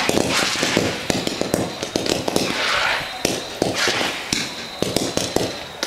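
Fireworks going off: a rapid, uneven string of sharp pops and bangs as a volley of rising comet shells launches, with a few short hissing rushes among them.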